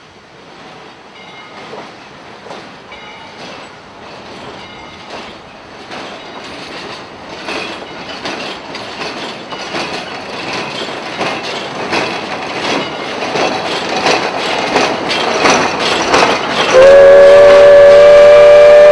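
Narrow-gauge steam train rolling closer, its wheels and cars clicking and clattering more loudly as it nears. About 17 seconds in, the locomotive's steam whistle starts one loud, steady blast of several pitches at once.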